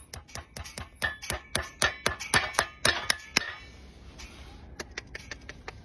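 Farrier's metal hand tools striking in a quick run of sharp taps, about four a second. The taps fade to lighter, sparser ticks about halfway through.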